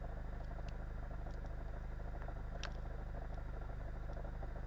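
Car engine idling steadily with the clutch pedal released, the condition in which the owner is listening for a knock from the clutch.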